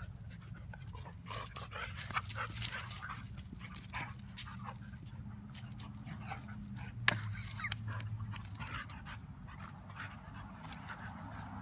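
A husky and a golden retriever play-fighting, with many short, irregular dog vocal sounds and panting breaths. A single sharp click stands out about seven seconds in.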